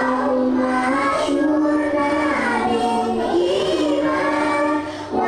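A group of young girls singing a nasyid together, holding long steady notes, with a short break for breath near the end.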